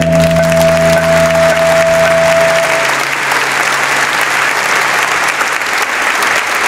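Applause breaks out as a recorded string piece ends on a held chord; the chord dies away in the first few seconds and the clapping goes on steadily.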